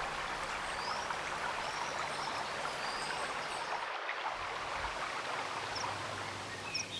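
Shallow river water babbling over small rapids, with a few faint high bird chirps. About four seconds in the water sound cuts off, leaving quieter open-air ambience with a few short bird chirps near the end.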